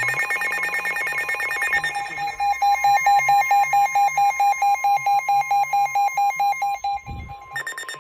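NOAA weather radios sounding their warning alarms: rapid electronic beeping in more than one pitch over a steady tone. A higher pulsing beep gives way about two seconds in to a lower, louder beep repeating about nine times a second, and the higher beep returns near the end. A brief low thump sounds about seven seconds in.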